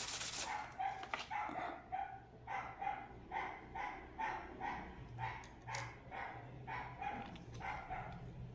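A dog barking repeatedly and fairly faintly, about two to three short barks a second, with a faint steady hum underneath.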